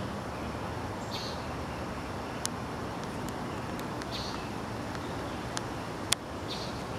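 Outdoor background noise: a steady low rumble, with a short high chirp about every three seconds and a few sharp clicks, the loudest near the end.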